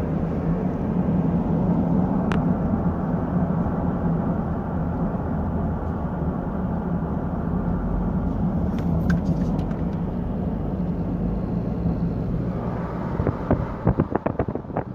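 A motor vehicle running on the move, heard as a steady low rumble. From about two seconds before the end, a quick run of sharp clicks and knocks comes in.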